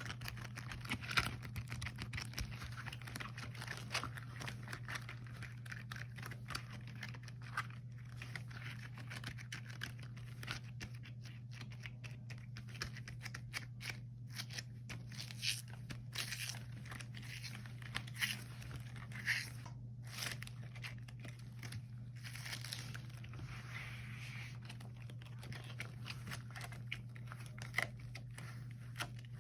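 Rubber gloves handled close to the microphone: a dense run of sticky, crinkling crackles, with a few sharper snaps spread through it, over a steady low hum.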